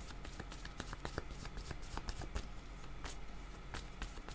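A thick deck of paper oracle cards being shuffled by hand, cards slid and tapped against one another in a quick, irregular patter of soft clicks.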